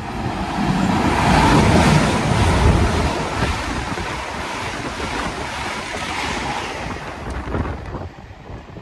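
Great Western Railway Hitachi Intercity Express Train passing through a station at speed: a loud rush of air and wheels on the rails, loudest in the first three seconds and then easing off.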